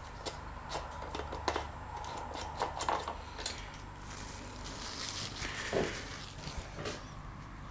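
Small clicks and knocks of hands handling a lawn mower's oil filler cap and dipstick during an oil-level check, with a brief rustle about four to five seconds in.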